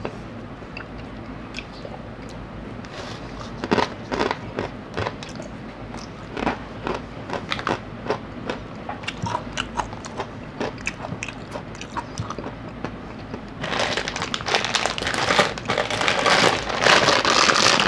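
Crunchy snack being chewed close to the microphone, with a run of crisp crunches. In the last four seconds, louder crinkling of plastic snack packets being handled.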